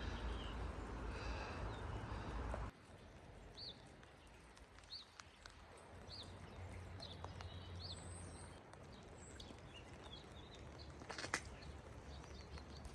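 Faint outdoor ambience with wind rumbling on the microphone, which cuts off suddenly a few seconds in. After that a small bird chirps a series of short, high notes about a second apart over a quiet background.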